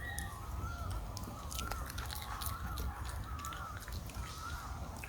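Baby monkey crying: short, wavering high-pitched calls repeated over and over, with scattered clicks.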